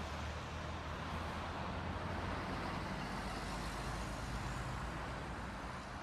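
Steady engine and road noise of a car driving slowly, heard from inside the cabin through a dashcam microphone: a low engine hum under an even hiss.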